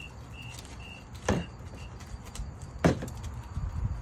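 Two sharp knocks about a second and a half apart, over a cricket chirping about twice a second at one steady pitch, which stops about halfway through.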